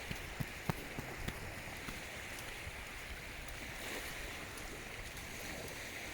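Steady wash of sea surf on the shore, with a few faint clicks in the first second and a half.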